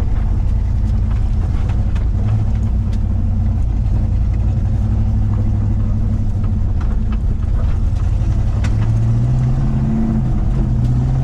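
SN95 Mustang's 302 V8 engine running steadily, its note rising a little about nine seconds in.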